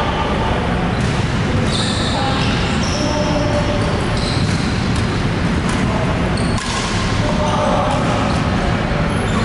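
Echoing sports-hall din of several badminton games: rackets hitting shuttlecocks again and again, mixed with players' voices.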